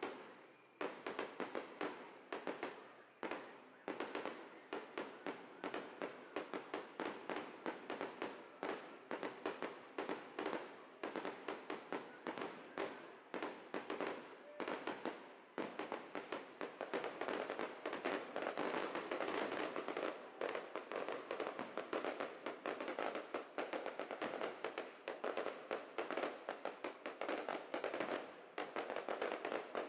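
Fireworks going off in rapid succession, a dense run of sharp bangs several a second. They grow thicker and louder after about sixteen seconds.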